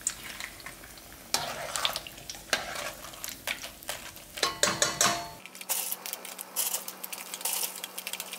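Gochu-bugak (dried battered chili peppers) deep-frying in hot oil in a wok, crackling and sizzling, with sharp clinks of a metal mesh strainer and chopsticks against the pan as the pieces are stirred and lifted out. The frying grows louder about a second in and again after about five seconds.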